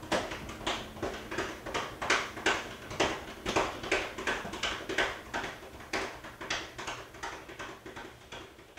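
Someone drumming by hand on a hard surface: a steady, uneven run of sharp taps about two to three a second, slowly getting quieter.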